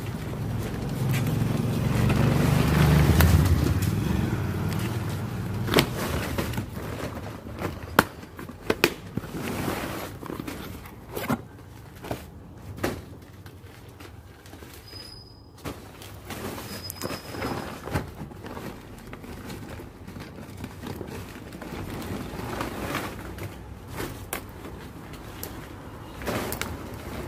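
Hands handling a cardboard delivery packet and the phone box inside it: scattered short clicks, knocks and rustles. A loud low rumble swells and fades over the first few seconds.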